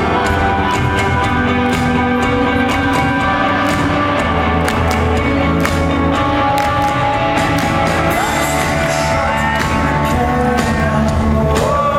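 Rock band playing live, with sustained chords over a steady drum beat.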